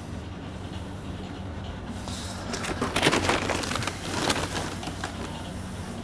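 Flour tipped from a scoop into a plastic mixing bowl on a scale, a rustling, scraping pour for a couple of seconds around the middle, over a steady low hum of kitchen machinery.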